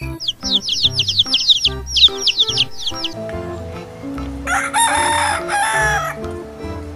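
A rooster crowing once, in two drawn-out parts, about four and a half seconds in. Before it comes a quick run of high, falling bird chirps, all over soft background music.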